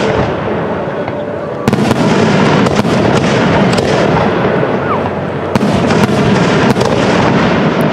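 Aerial fireworks shells bursting in quick succession over a continuous loud rumble and crackle. Sharp bangs stand out about two seconds in and again around six and seven seconds.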